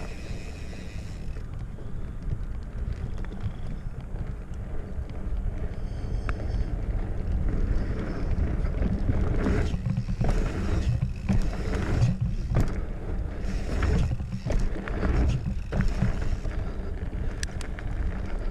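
Mountain bike riding a dirt trail, heard from a chest-mounted action camera: wind buffeting the microphone over a steady rumble of tyres on the ground. Through the middle stretch comes a run of sharp knocks and rattles from the bike over rougher ground.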